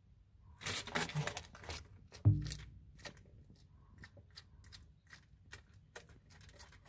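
Bearded dragon biting and chewing a hornworm pupa: a run of sharp crackling crunches and clicks, with a dull knock a little after two seconds in.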